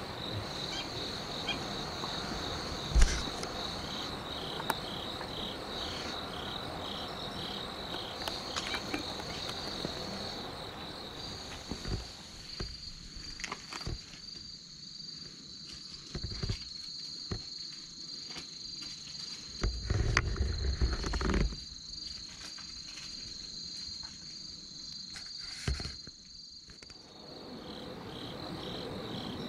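Crickets chirping in a steady, finely pulsed high trill. Handling noise on the microphone cuts across it: a sharp knock about three seconds in and a longer low rumble around twenty seconds in.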